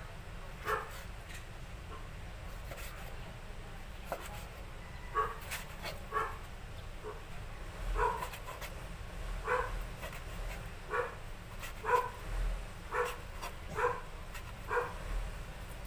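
A dog barking in short single barks, a few early on and then roughly one a second from about five seconds in, with faint knife taps on a plastic cutting board.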